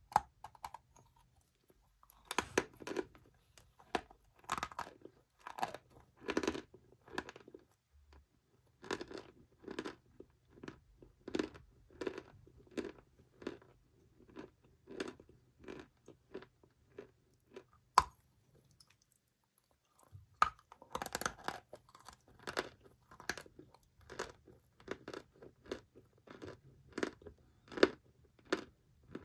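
Dry chalk being chewed close to the microphone: a run of irregular crunches, about two a second. The crunching breaks off for about two seconds roughly two-thirds of the way through, then goes on.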